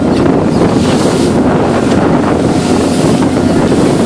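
Wind buffeting the microphone on the open deck of a motor boat running through choppy sea, over the steady drone of the boat's engine. The rush of waves and spray against the hull swells at moments.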